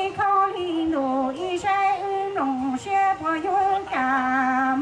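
A woman singing a Hmong song into a handheld microphone, amplified, in a string of held notes with a light vibrato, the longest note held near the end.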